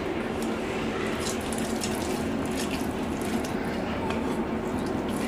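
Soft wet taps and squelches of boiled pumpkin chunks being handled and dropped into a steel mixer-grinder jar, over a steady low background hum.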